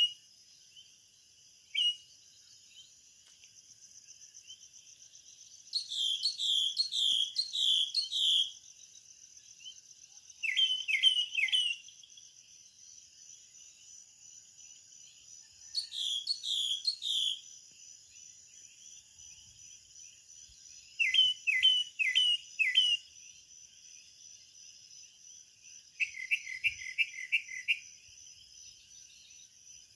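Birds calling in short bursts of four or five quick repeated notes, one burst every few seconds, over a steady, high-pitched insect chorus.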